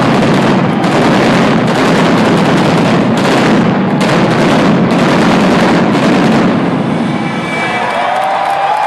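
Indoor arena pyrotechnics going off in a loud, rapid barrage of bangs and crackles, thinning out about two-thirds of the way through.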